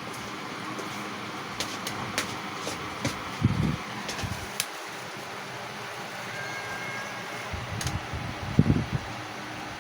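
Steady whirring of a fan, with scattered light clicks and two low thumps, one about three and a half seconds in and one near the end.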